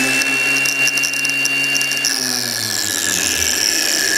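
Two Ryobi 18 V cordless angle grinders running with no load. A high whine holds at full speed, then falls away from about two seconds in as one grinder is switched off and spins down. The other runs on at a steady, lower pitch.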